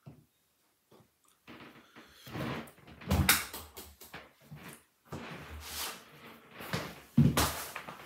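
Front-loading washing machine door being pulled open, the latch letting go with a loud clack about three seconds in amid knocks and handling noises, and another loud knock a little after seven seconds.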